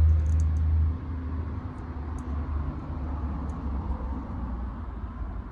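Cars passing on a suburban road. A deep rumble is loud for the first second, then drops to a quieter, steady engine and tyre noise as another car goes by.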